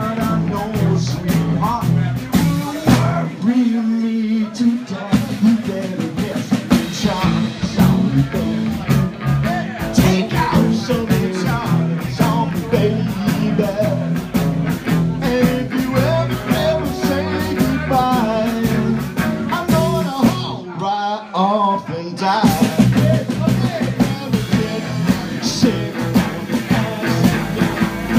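Live band with drum kit and electric guitar playing a song. The drums and bass drop out briefly twice, about four seconds in and again about twenty-one seconds in.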